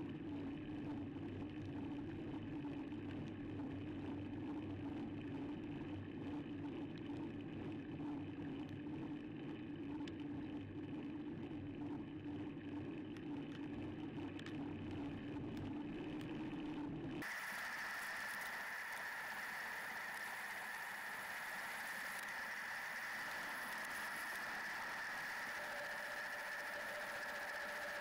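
Steady riding noise from a bicycle-mounted camera while the bike is pedalled uphill: tyre, wind and drivetrain noise. The sound changes abruptly about two-thirds of the way through, from a low, humming noise to a thinner, higher one with a steady high whine, where the footage is cut.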